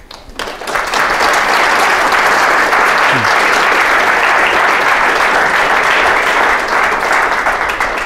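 Audience applauding, swelling within the first second, holding steady, and tapering off near the end.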